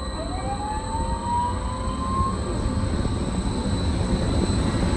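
Hurricane-simulator wind machine blowing and picking up speed. A whine climbs in pitch for about two seconds over a rush of blown air that grows steadily stronger.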